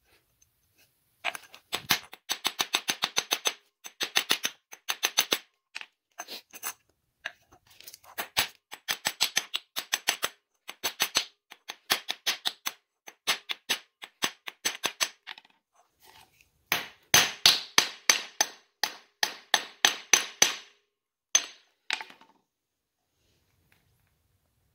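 Hammer peening a cold metal rivet head over, in rapid metal-on-metal strikes several a second. The strikes come in runs of a few seconds with short pauses between, played at double speed.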